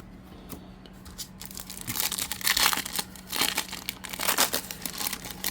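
A trading-card pack wrapper being torn open and crinkled, starting about a second and a half in with a dense run of sharp crackles.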